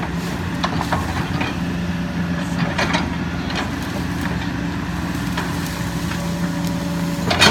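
Kobelco SK140 hydraulic excavator's diesel engine running steadily, with scattered knocks and clanks on top, the loudest about three seconds in and again right at the end.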